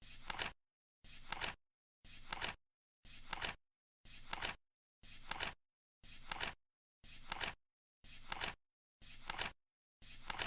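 Flip-clock countdown sound: a card flipping once every second, each flip a short rustle that ends in a sharp double clack.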